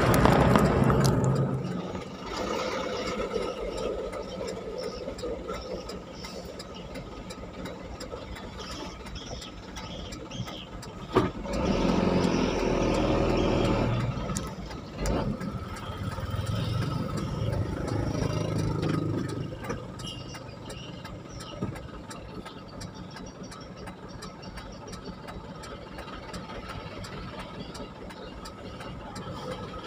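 Vehicle engines and road noise heard from a moving vehicle in traffic. The sound is loudest at the start and drops after about two seconds, then swells twice, about twelve and seventeen seconds in, as other vehicles pass close by.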